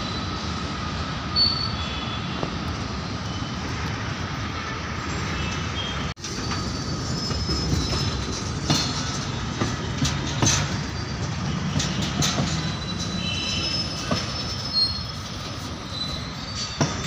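Freight train wagons rolling past: a steady rumble of steel wheels on rail, with short high-pitched wheel squeals and irregular sharp clicks and clacks over the rail joints. The sound drops out for an instant about six seconds in, then carries on.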